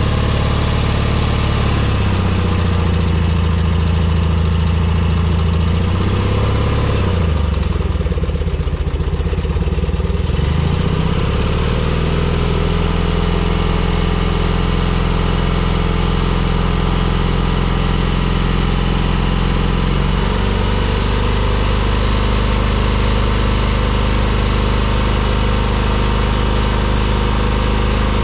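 Propane-fuelled Onan engine of a Grove Stevedore mobile crane running steadily. Its revs dip about seven seconds in and recover by about ten seconds in.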